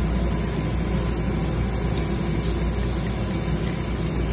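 Steady rushing noise of restaurant ventilation: the tabletop grill's exhaust and the air conditioning running.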